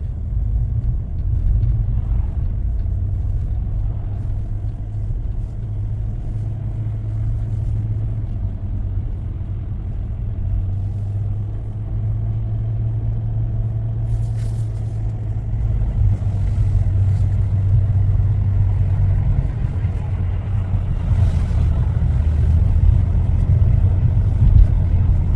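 Steady low drone of a car's engine and tyres heard from inside the cabin while driving, getting a little louder near the end.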